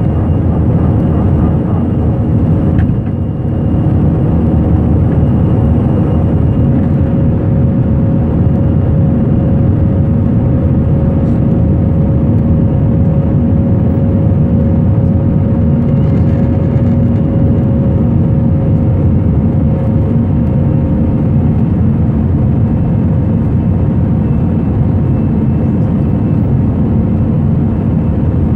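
Airbus A319 jet engines and airflow at climb power, heard inside the cabin over the wing: a loud, steady rumble with a steady hum through it that fades about two-thirds of the way through.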